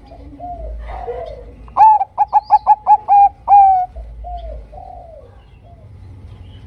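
Bangkok-type zebra dove (perkutut) cooing. Soft coos come first, and about two seconds in there is a loud run of short, quick notes ending in one longer drawn-out note. Quieter coos follow.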